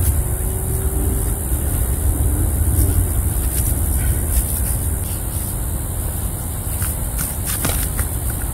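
Feet in slide sandals squelching and sucking in deep wet mud, with a few short sharp clicks in the second half. All of it sits under a steady low rumble.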